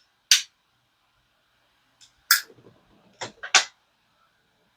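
Four short, sharp clicks or smacks: one about a third of a second in, then three close together between about two and a half and three and a half seconds in.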